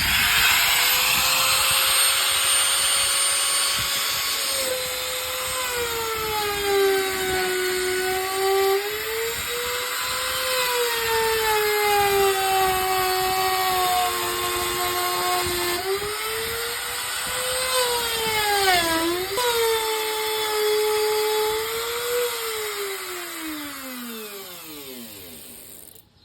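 Electric router cutting a groove in wood: a high motor whine that starts suddenly, dips in pitch and recovers again and again as the bit is loaded, then falls steadily in pitch near the end as the motor spins down after switch-off.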